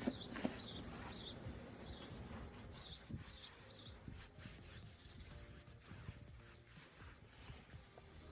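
Faint small-bird chirps, short high notes repeated several times, fainter after the first few seconds, over low room noise, with a couple of light knocks at the start.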